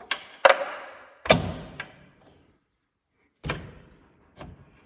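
Metal clunks and knocks, five in all, as a steel lower control arm is shifted against its subframe mounts to line up the bolt holes. The loudest comes about a second in, and each rings briefly.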